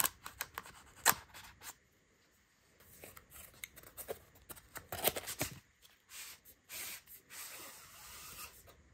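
Cardboard box being opened by hand and a palm rest slid out of its paper sleeve: scattered clicks from the flap, then rustling and scraping of packaging.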